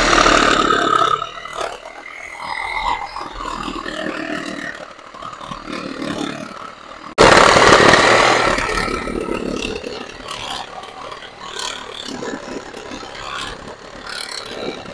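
Reciprocating saw cutting through a wooden board. It runs loud for about a second at the start, then starts again abruptly about seven seconds in and fades over the next two to three seconds.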